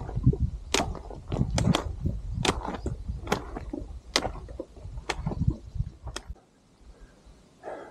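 A hiker's steps on a steep rocky trail: sharp clicks on stone about once a second over a low rumble. Both stop about six seconds in.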